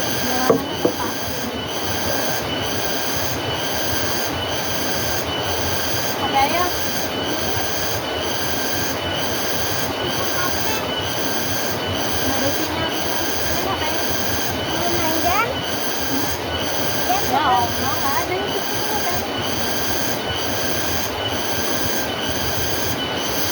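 Insects calling outdoors in a steady high-pitched chorus that pulses about once a second, with a few short rising chirps now and then.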